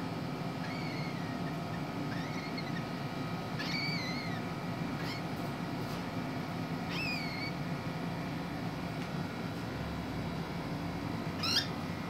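Cockatiels giving short, soft chirps, whistled notes that rise and fall, every second or so, then one loud sharp upward call near the end. A steady low hum runs underneath.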